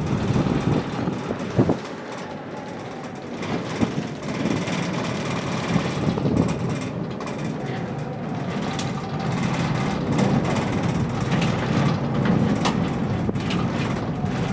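Steady rumble and rattle inside a cable car gondola cabin travelling along its cable, with occasional sharp clicks and knocks.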